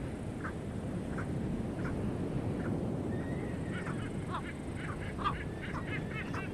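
Seabirds calling at a nesting colony: short honking calls repeat roughly once a second at first, then come quicker and overlap near the end. Underneath runs a steady rush of surf and wind.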